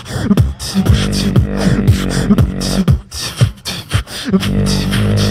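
Live beatbox group performing through microphones: repeated vocal kick drums that sweep down in pitch, sharp snare-like clicks, and a held bass tone underneath.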